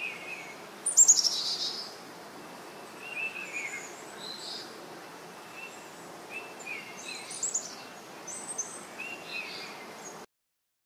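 Wild birds singing: scattered short chirps and whistled phrases, with one louder falling call about a second in, over a steady faint outdoor hiss. The sound cuts off abruptly near the end.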